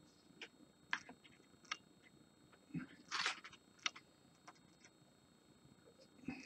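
Scattered light clicks and taps of a plastic tub of basing material and miniature bases being handled on a desk, with a short rustle about three seconds in and a soft thump near the end.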